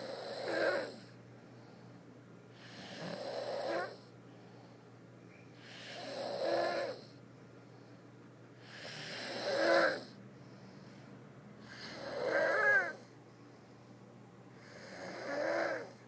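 A person snoring in a steady rhythm: six snores about three seconds apart, each swelling for about a second and then cutting off.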